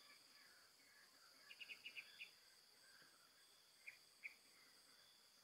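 Faint bird chirps: a quick run of short notes about a second and a half in, then two single chirps near four seconds, over a steady high insect buzz.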